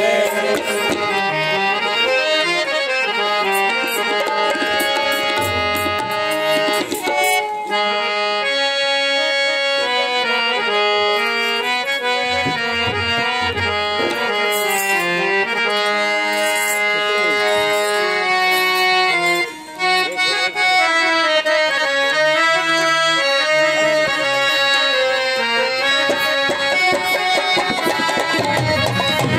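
Harmonium playing a bhajan melody in held reed notes, with a dholak drum beating a steady rhythm underneath.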